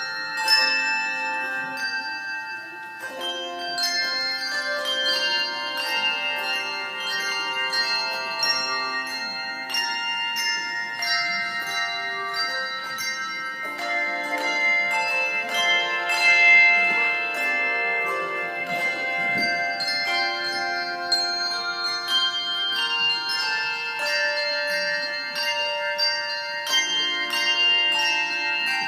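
A handbell choir playing a tune: many bells struck in turn and together, each note ringing on and overlapping the next in changing chords.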